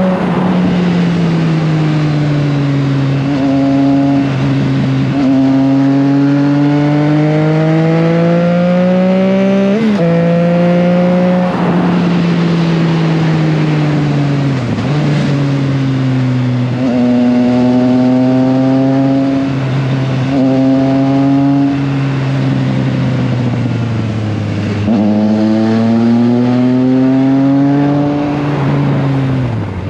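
Triumph Trident 660's inline three-cylinder engine running under way, its revs repeatedly climbing and falling, with several abrupt breaks in pitch.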